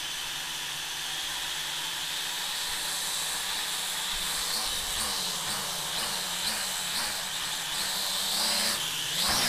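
SY X25 flying-car quadcopter's four small motors and propellers running with a steady high whine, the pitch wavering as the throttle changes and rising near the end.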